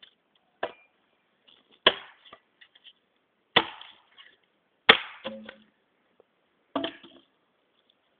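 A Tramontina machete chopping into a dead tree: five separate blows, about one every second and a half, each a sharp hit with a short ring-off.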